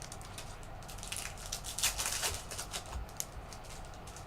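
Trading cards and pack wrappers being handled: scattered short rustles, crinkles and light clicks, with a few soft thumps.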